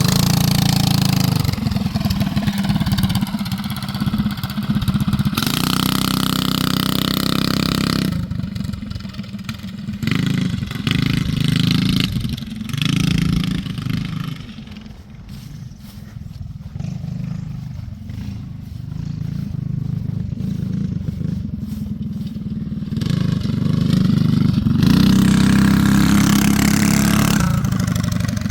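Small gas engine of a homemade motorized cart running under throttle, its pitch rising and falling as the rider speeds up and eases off. The engine sound drops away for several seconds in the middle and comes back loud near the end.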